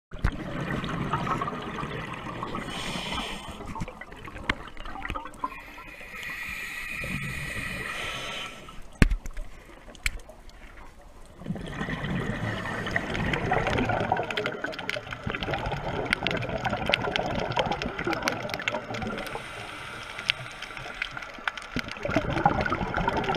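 Underwater water noise picked up by a camera: bubbling and rushing that swells and fades, with a brighter hissing spell about six seconds in and a sharp knock about nine seconds in. Many small crackling clicks run through the second half.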